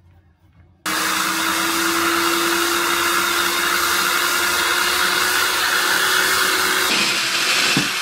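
Electric power tool switched on about a second in and running steadily for about seven seconds, its motor whine rising slightly in pitch over a loud hiss, then switching off near the end.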